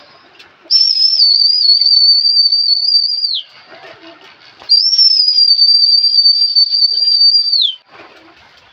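Two long, shrill whistles, each about three seconds. The pitch wavers at the start and drops away at the end, and there is a short gap between them.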